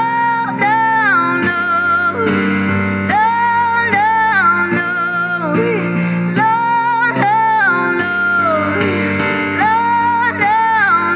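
A woman singing through a microphone over an amplified instrumental backing, in phrases of long held notes that waver and slide in pitch.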